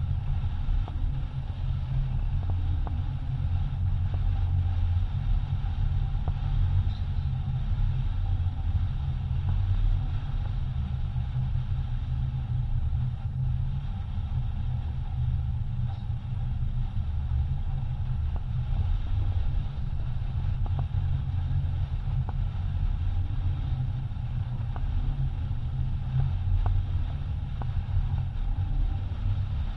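Wind buffeting the onboard camera's microphone and water rushing along the hull of a racing yacht under sail, a steady low rumble.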